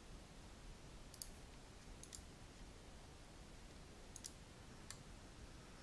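Four faint computer mouse clicks, spread over a few seconds against near silence.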